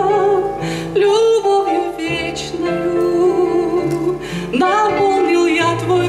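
A woman singing a Russian Christian song into a microphone, holding long notes with a wide vibrato over an instrumental accompaniment with a stepping bass line.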